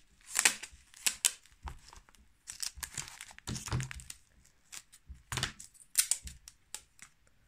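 Clear adhesive tape being pulled off a small roll and torn off in a series of short, sharp rips, with cloth rustling as the tape is pressed onto a fabric-wrapped bundle.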